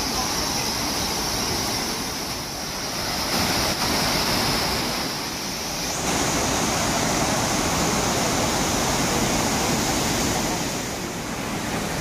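A waterfall's water pouring down a rock cliff into a pool makes a steady rushing noise. It gets a little louder about six seconds in.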